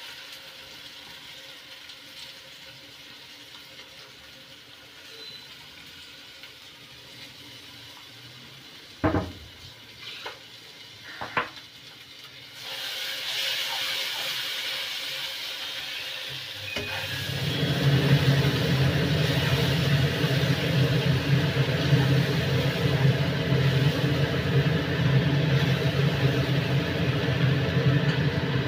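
Onion, tomato, ginger and garlic paste frying in hot oil in a kadhai as it is stirred with a metal spoon. It starts faint, with three sharp knocks a third of the way in; then the sizzle grows loud, and a steady low hum joins it just past halfway.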